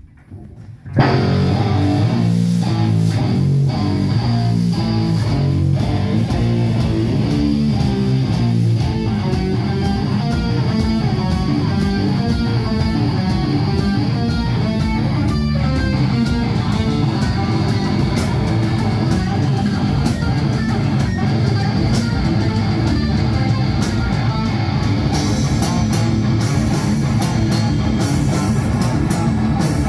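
Live heavy metal band playing: electric guitar and bass guitar riff kicks in suddenly about a second in, with drums, and cymbals come in brighter near the end.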